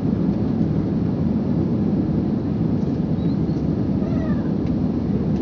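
Steady low roar of an airliner's jet engines and rushing air heard from inside the passenger cabin during the takeoff climb, with a faint, brief high wavering sound about four seconds in.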